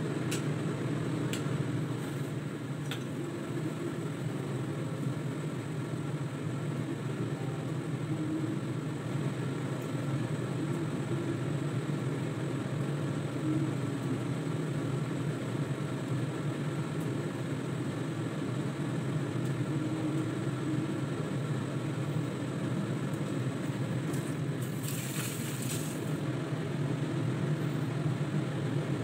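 Steady low mechanical hum, like a kitchen exhaust fan, with a couple of light clinks of a metal ladle against a stainless steel pot near the start and a short hiss about 25 seconds in.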